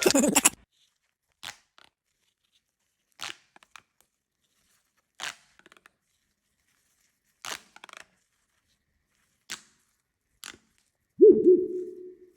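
A series of short, sharp snaps, one roughly every two seconds, each followed by a faint tick or two. Near the end comes a louder pitched, toy-like tone that wobbles and fades over about a second.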